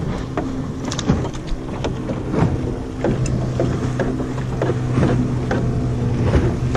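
A boat's motor hums steadily at idle while a gillnet is hauled in over the side of a small fiberglass boat. Irregular knocks and rustles come from the net and its lines against the hull.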